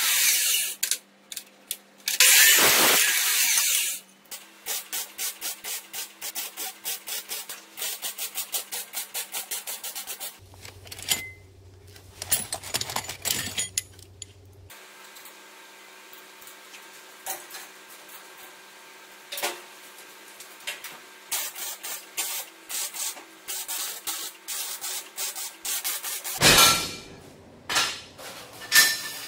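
Bench-mounted abrasive cut-off saw cutting through steel tubing for about two seconds, starting about two seconds in. Then a long stretch of rapid light clicks and metal clinks, with a low hum for a few seconds midway and a louder clatter near the end.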